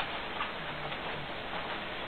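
Steady hiss of a home security camera's microphone, with a few faint clicks and ticks.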